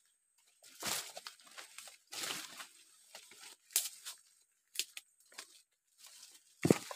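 Footsteps crunching through dry leaf litter and twigs, and branches brushing past, in irregular bursts with a heavier thud near the end.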